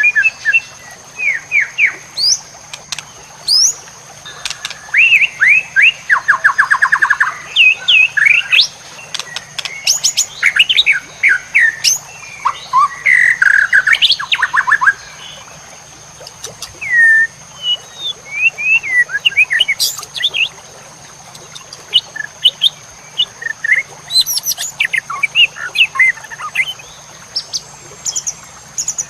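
White-rumped shama singing a long, varied song of loud whistles, sweeping notes and fast rattling trills, in phrases broken by short pauses. A steady high-pitched whine runs underneath.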